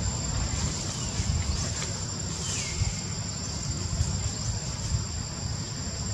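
Steady chorus of insects: a constant high buzzing with a thin, even tone above it, over a low, uneven background rumble.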